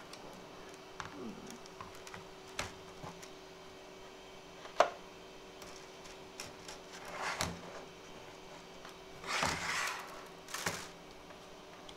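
Hard plastic clicks, knocks and rustles of a filament spool being fitted onto a 3D printer's spool holder and the filament being handled, with one sharp click about five seconds in the loudest, over a faint steady hum.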